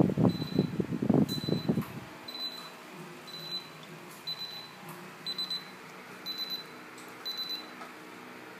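Alarm control panel beeping during its arming countdown: short, high single beeps about once a second. A louder low jumble of noise sits under the first two seconds, then only a faint hum remains.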